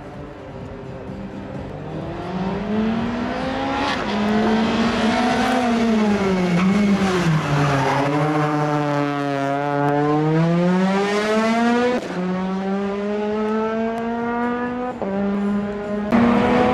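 Rally car engine revving hard on a tight course. The pitch climbs, drops low through a slow section near the middle, then climbs again, broken several times by quick gear changes. It grows louder as the car comes closer.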